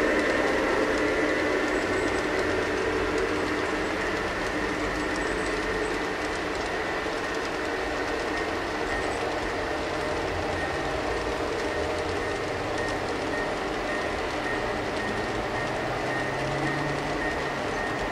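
G scale model freight train rolling past on garden-railway track. Its many cars' wheels make a steady rolling rumble on the rails, with a thin high whine above it.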